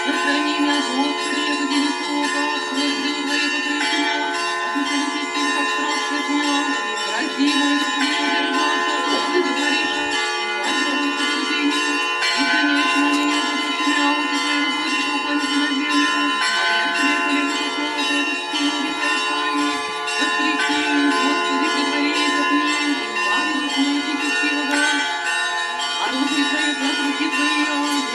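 Orthodox church bells ringing in a continuous peal, many bells sounding at once, with a lower-pitched ring recurring every couple of seconds.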